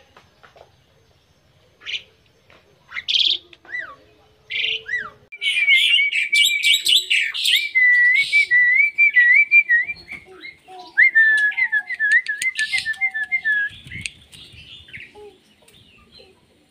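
Black-winged myna singing: a few separate calls at first, then from about five seconds in a long, varied run of warbling whistles, trills and sharp clicks that dies away near the end.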